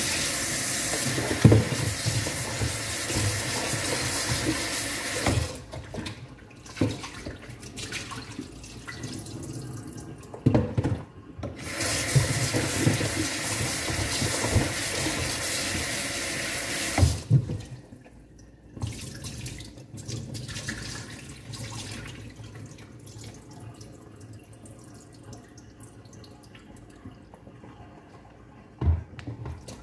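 Kitchen tap running into a sink in two stretches of about five seconds each, with short knocks and clunks of things being handled and washed in the sink between and after them.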